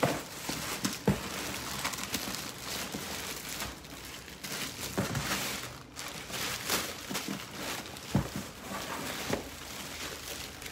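Plastic wrapping crinkling and rustling as plastic-bagged handbags are handled and lifted out of a cardboard shipping box, with a few knocks.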